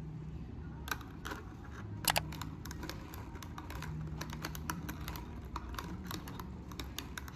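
Typing on a keyboard: irregular key clicks, a few per second, over a low steady hum.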